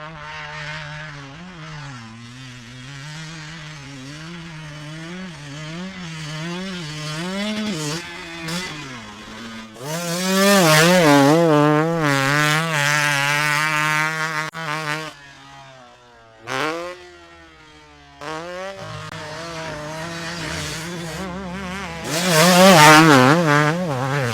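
KTM 250 two-stroke motorcycle engine revving, its pitch rising and falling with repeated throttle blips. It gets loud in two long surges, about ten seconds in and again near the end, with a short blip and a quieter, steadier stretch between them.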